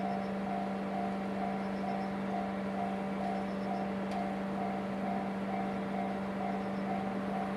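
Japanese railway level crossing's electronic warning bell ringing, an even repeated ding a little over twice a second over a steady low hum.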